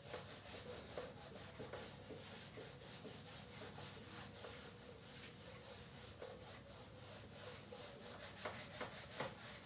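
Whiteboard eraser rubbing across a whiteboard in rapid back-and-forth strokes, wiping off marker writing.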